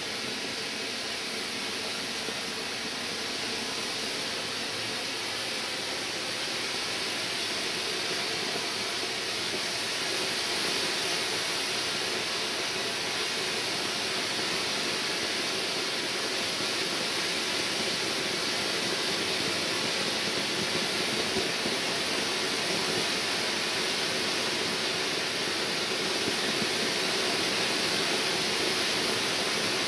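Weco Pink Power ground fountain firework burning: a steady rushing hiss of sparks, slowly getting louder as the fountain builds.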